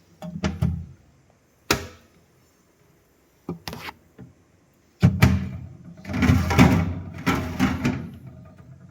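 Handling noises: a few knocks and a sharp click, then about three seconds of denser knocking and rattling, the kind made by a refrigerator's doors and drawers being opened and shut.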